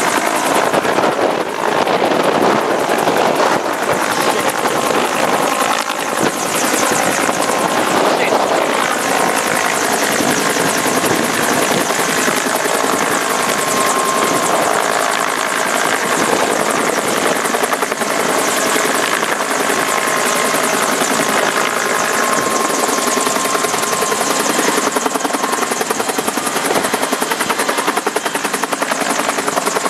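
Bell UH-1H Iroquois (Huey) helicopter hovering close overhead, loud and steady, with the fast beat of its two-blade main rotor and the running of its turbine, as it takes the weight of a power pole on a long sling line.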